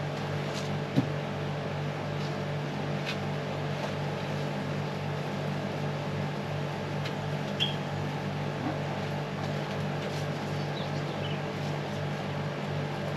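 Steady low mechanical hum, like a motor running, with a few light knocks and rustles from plants and soil being handled in a pot.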